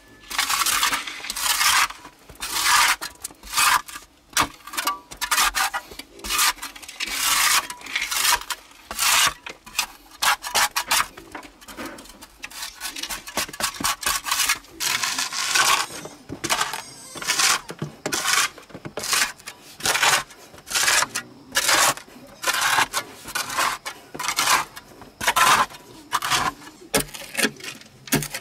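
Metal hoe blade chopping and scraping into packed clay soil, in repeated strokes of roughly two a second.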